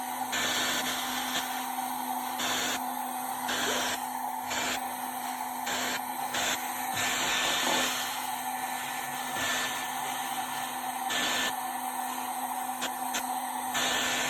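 Handheld blow dryer running steadily with a constant fan hum, blowing hot air on a car body panel to soften it so the dent can be pushed level.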